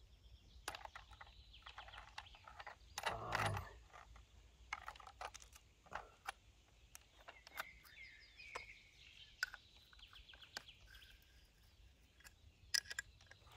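Faint metallic clicks and clinks of an angle grinder being handled while a thin cutting disc and its clamping nut are fitted and tightened, with one louder rattle about three seconds in. Small birds chirp in the background.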